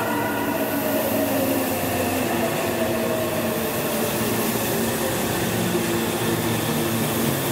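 Meitetsu 2000 series and 9500 series electric train pulling into the station, its inverter-driven traction motors whining in several tones that slowly fall in pitch as it brakes, over a steady rumble of the cars rolling by.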